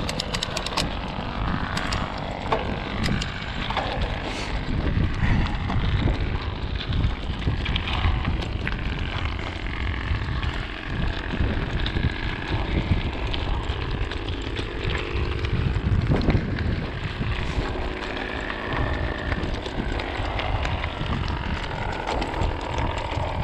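Mountain bike riding over a rough dirt trail: a continuous rumble of tyres on dirt and rocks, with the frame and parts rattling and knocking.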